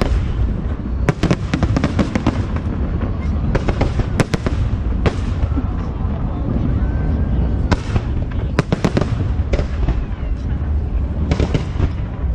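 Aerial fireworks going off: an irregular string of sharp bangs and crackles over continuous low booming.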